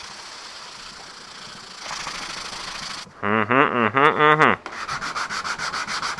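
Sandpaper rubbing by hand over cured steel-epoxy filler on a car's trunk lid: a steady scratchy rubbing, then quick back-and-forth strokes at about five a second near the end. About three seconds in, a loud pitched, wavering tone breaks in for about a second and a half.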